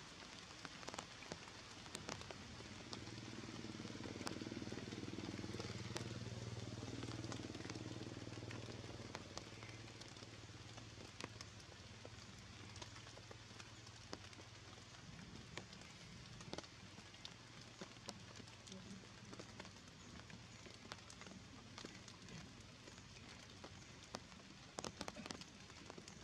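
Rainwater falling on forest leaves: a soft even hiss with scattered sharp drip ticks. A low hum swells a few seconds in and fades away after about ten seconds.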